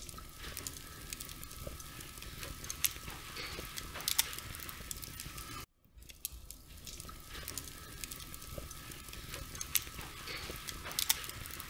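Flag flapping in the wind: irregular snaps and crackles over wind noise, with a faint steady hum. The sound cuts out briefly about halfway through.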